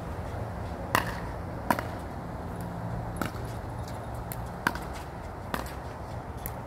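Pickleball paddles striking the hard plastic ball in a rally: a series of sharp pops about a second apart, over steady low background noise.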